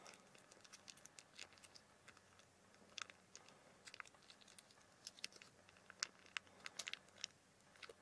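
Quiet, irregular crinkling and small sticky clicks as melted chocolate is squeezed out of a foil pouch onto a cake, the clicks coming thicker and a little louder in the second half.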